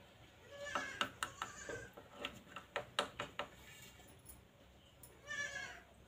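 Rose-ringed parakeet giving two short, bleat-like calls, about a second in and again near the end, with a run of sharp clicks between them.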